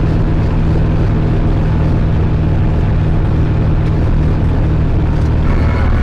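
Zetor 7011 tractor's four-cylinder diesel engine running steadily under way on the road, heard from inside the cab, as it warms up toward operating temperature.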